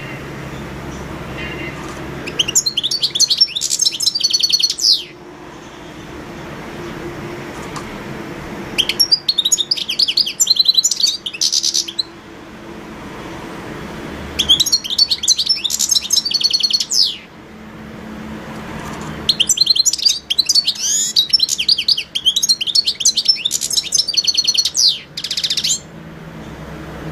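European goldfinch singing: four bouts of rapid, high, tinkling twitters, each a few seconds long, with short pauses between. A steady low hum runs underneath.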